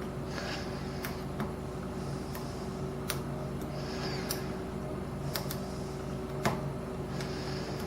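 Faint, scattered clicks and light scraping of a lock pick and tension wrench working the pin stack of a Lockwood 301/63 padlock, the loudest click about six and a half seconds in, over a steady background hum.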